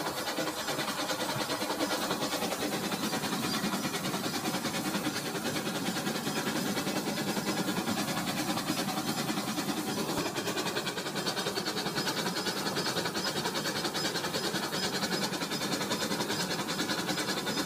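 Battery-powered Rail King toy train running steadily on its plastic track: a continuous motor whir with fast, even clicking of the wheels.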